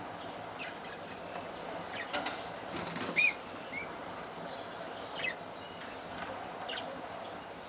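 Budgerigars giving short chirps, several scattered through, the loudest a little after three seconds. Around then comes a brief flutter of wings. A steady hiss runs underneath.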